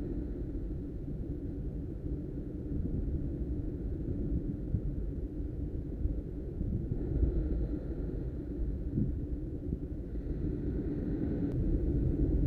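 Steady low rumble of surf breaking against rocky sea cliffs, with wind buffeting the microphone. It swells about seven seconds in and again near the end.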